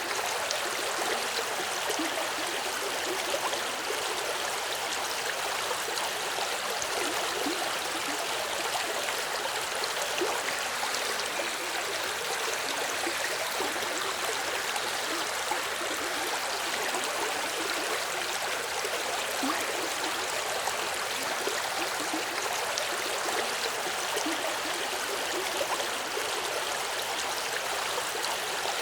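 A small river or stream flowing steadily over stones, a continuous rushing and babbling of water.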